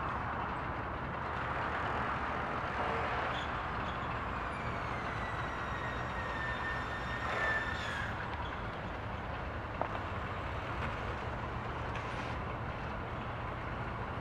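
Steady low engine hum under open-air background noise. From about four to eight seconds a high whine slowly falls in pitch, ending in a brief rush of noise.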